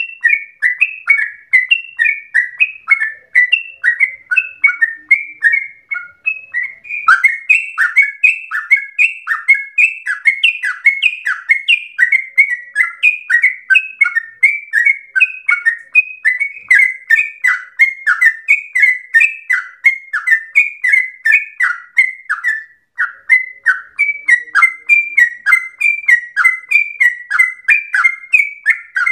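Yellow-vented bulbul (trucukan) singing a long, unbroken run of quick, bubbling notes, several a second, the rapid-fire 'ropel' song of a bird in full voice.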